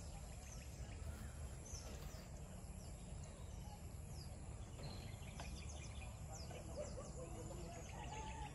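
Rural outdoor ambience: several birds chirping in short, quick falling notes over a steady low rumble, with a lower, wavering call coming in near the end.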